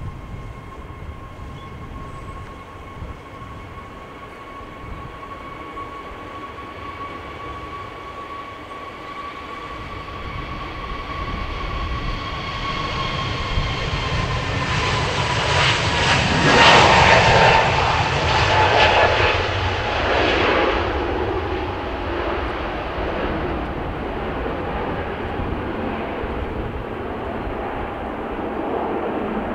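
Airbus A321neo's twin turbofan engines at take-off power during the take-off roll and lift-off: a steady whine that grows louder, drops slightly in pitch as the jet passes, and is loudest about halfway through, then gives way to a broad roar as it climbs away.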